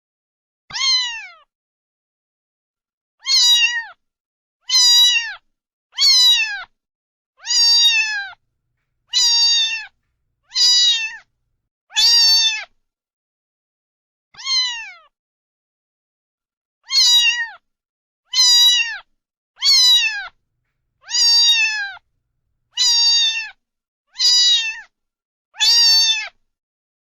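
A domestic cat meowing over and over, about sixteen short meows, each rising a little and then falling in pitch, spaced roughly a second and a half apart, with a couple of longer pauses.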